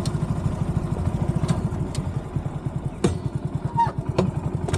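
Motorcycle engine running steadily at low speed, a fast even train of exhaust pulses, with a few sharp clicks and knocks over it.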